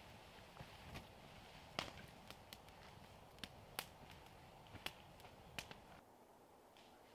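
Faint, scattered sharp snaps and knocks of wood and twigs, roughly one every half second to second, over a quiet outdoor background; the background drops quieter about six seconds in.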